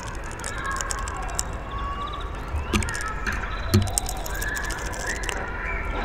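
Outdoor background with a low steady rumble, two soft knocks about a second apart midway as a hawfinch feeds at a wooden bird feeder, plus faint bird chirps and small ticks.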